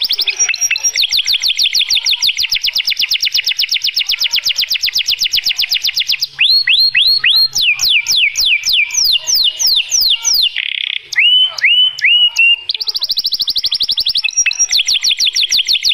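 Male domestic canary singing a long continuous song: fast rolling trills of quick repeated notes, changing about six seconds in to slower sweeping notes with a brief buzzy phrase, then back to a fast trill near the end.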